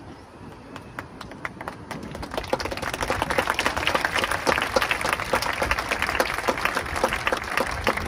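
Crowd applauding: a few scattered claps about a second in build to full, dense applause after a couple of seconds.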